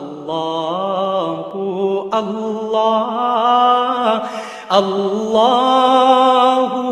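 A single voice chanting in long held notes with ornamented, wavering pitch, in a few drawn-out phrases with no instruments.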